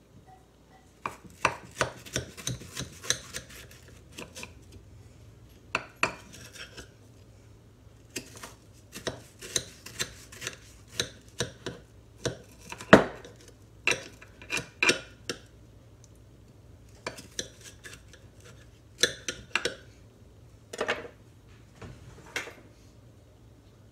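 Kitchen knife cutting hardened nougat bars in a glass baking dish: a string of short, sharp knocks and clicks as the blade chops down and strikes the dish, in irregular clusters with brief pauses. The loudest knock comes about halfway through.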